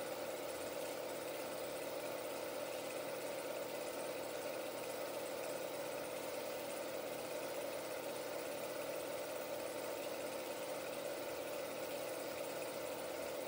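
16mm film projector running, a steady, even hum and whir from its motor and film transport.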